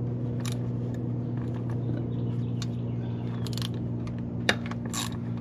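Light clicks and taps of hand tools on metal during work on engine bolts, the sharpest click about four and a half seconds in, over a steady low hum.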